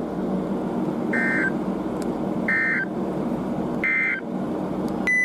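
Three short bursts of warbling two-tone digital data from a weather radio, about a second and a half apart: the SAME end-of-message signal that closes an NWS warning broadcast. A steady background hum runs underneath, and a brief beep sounds near the end.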